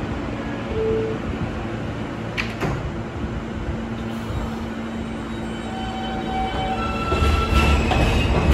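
R160 subway train at the platform: its sliding doors shut with a clunk about two and a half seconds in, then the train starts to pull out. Its traction motors whine in a few steady tones that step upward in pitch, and the low rumble of the train grows louder near the end.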